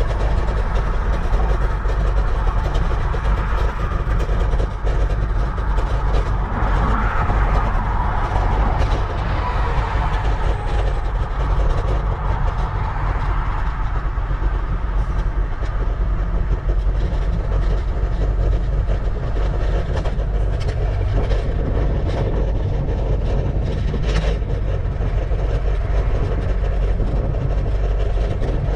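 Steady wind rush and low rumble on an action camera's microphone while cycling at speed, with tyre and road noise mixed in.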